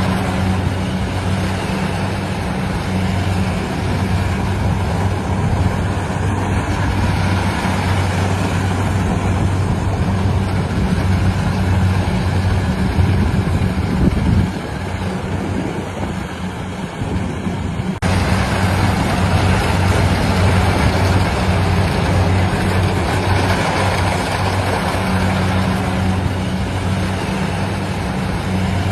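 Harvesting machine's engine running steadily with a loud, even hum; the sound dips briefly about halfway through, then changes abruptly.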